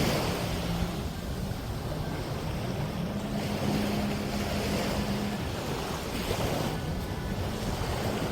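Small waves washing on a sandy shore, with wind buffeting the microphone and a low steady hum underneath.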